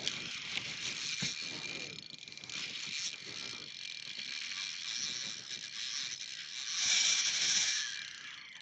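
Fishing reel whirring and ratcheting under load as a hooked bream is played on a bent rod. It grows louder for about a second near the end.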